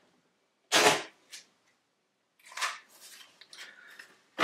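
Masking tape pulled off the roll in short, sharp rips: a loud one about a second in, a longer rasp near the middle and another rip at the end.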